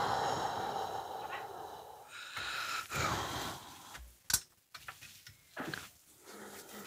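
A man crying in anger, with heavy, ragged breaths that fade over the first seconds and another shaky breath at about three seconds. A single sharp click comes just after four seconds.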